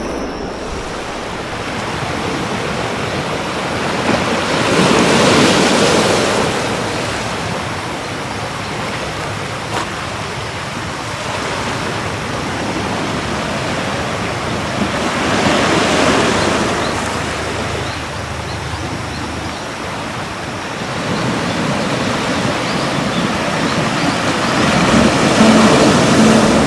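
Sea waves breaking on a shore: a steady rush of surf that swells twice, about ten seconds apart, and builds again near the end.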